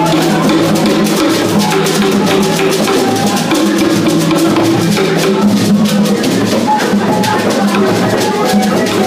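Dance music with drums and shakers keeping a steady beat under held notes.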